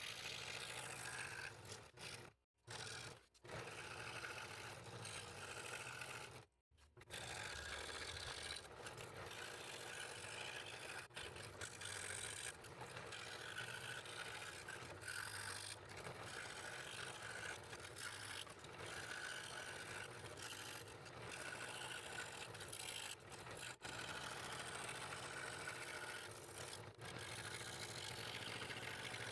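Scroll saw running and cutting fretwork in purpleheart, a steady buzzing rasp of the reciprocating blade through the wood, with two brief gaps in the first seven seconds.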